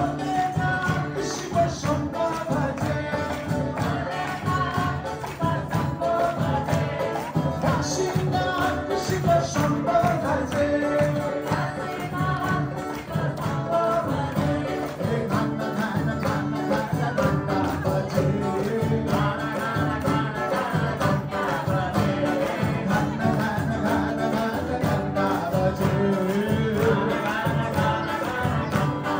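Devotional bhajan music with group singing, and the crowd clapping along in time.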